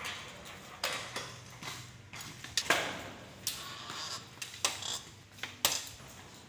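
A run of about ten irregular knocks and clicks, each with a short echo, over a low steady hum.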